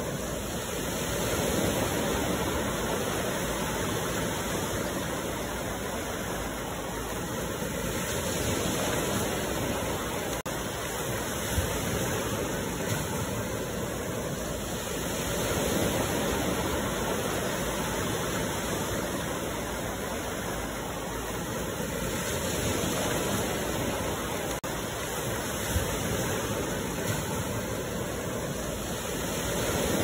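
Waterfall pouring into a pool: a steady rush of falling water that swells and eases slowly every several seconds.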